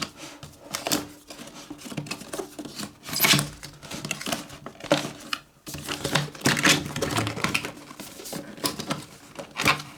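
Packaging of a headphone box being handled and opened: irregular crinkling, rustling and tearing of paper and plastic, with scattered taps and clicks.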